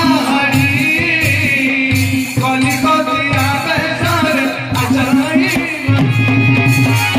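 A folk song plays loud, with a singing voice over hand-drum percussion that keeps a steady beat.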